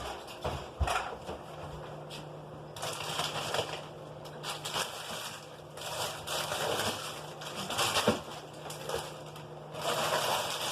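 Rustling and crinkling of packaging being handled, with scattered clicks and knocks. A low steady hum starts about a second and a half in.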